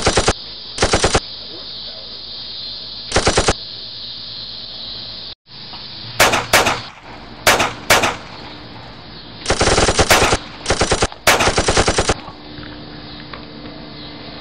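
Machine-gun sound effect dubbed over finger-gun play: several short bursts of rapid automatic fire with pauses between them, the longest run of bursts about two and a half seconds long near the end.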